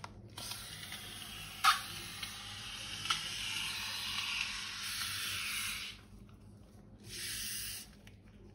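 Hissing spray: one long hiss of about five and a half seconds with a sharp click about a second and a half in, then a shorter hiss of about a second near the end.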